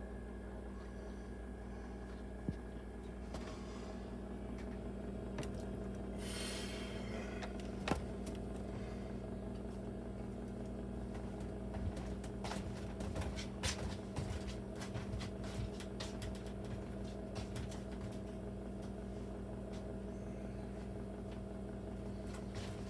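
Steady low hum under scattered light clicks and knocks of a camera being handled and propped up, with a brief rustle about six seconds in.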